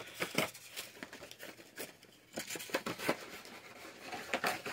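Packaging handled by hand: crisp plastic and cardboard rustles with scattered light clicks and taps as a small doll is put back into its box or bag.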